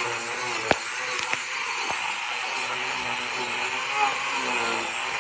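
Angle grinder fitted with a Manpa carving cutter grinding into the wood of a root bowl, a steady running noise with a sharp knock about a second in.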